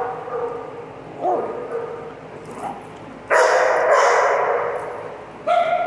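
Dogs vocalising as they play: a short whine about a second in, a loud rough bark-growl lasting about a second around the middle, and a held high whine near the end.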